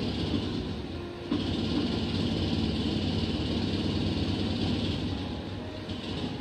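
Steady rushing of river water. It dips briefly about a second in, then comes back at once.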